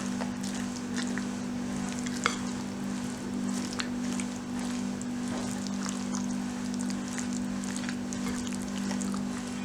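Wet stirring and mixing in a bowl: a soft crackly sound with scattered light clicks, over a steady low hum.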